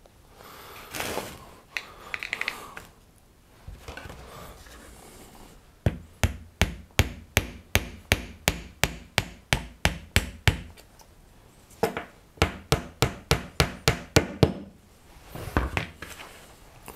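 Wooden toy parts scraped and handled on a workbench, then a hammer tapping on wood in two quick runs of sharp, even knocks, about four a second.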